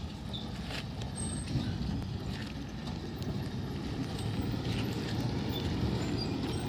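Heavy diesel tipper truck driving slowly over a rough dirt track: a steady low engine rumble that grows a little louder as it comes closer.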